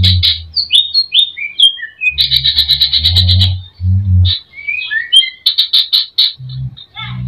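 Greater green leafbird (cucak ijo) singing a fast, varied song: bursts of rapid trills alternate with short falling whistles, a song stuffed with phrases copied from other birds.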